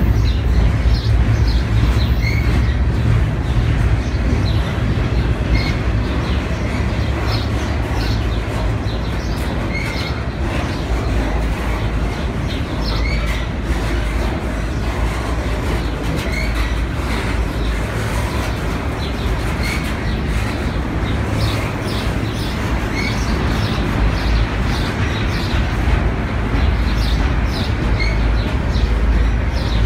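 Double-stack intermodal freight cars of a CSX container train rolling past close by: a steady, loud rumble of steel wheels on the rails, with clicking as the trucks pass over the track.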